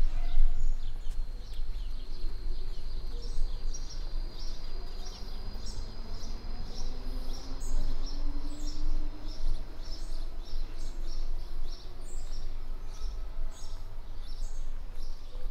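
Small birds chirping in the trees, many short calls throughout and one long, steady high note over the first half, over a low, steady city rumble.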